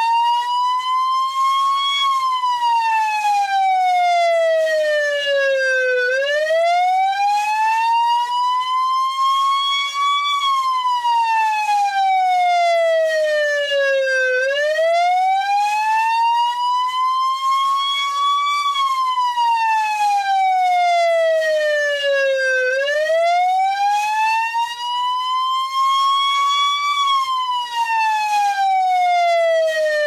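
Federal Sign & Signal PA20A electronic police siren sounding its wail: a slow rising-and-falling tone, each climb and fall taking about eight seconds, repeating steadily about four times.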